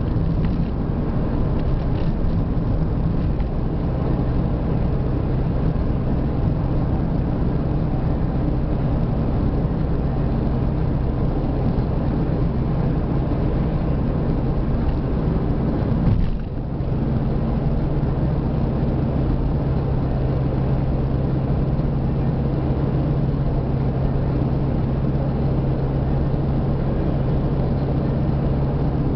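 Car engine and road noise heard from inside the cabin while driving on a highway: a steady drone that dips briefly about halfway through, then settles back with a steadier low hum.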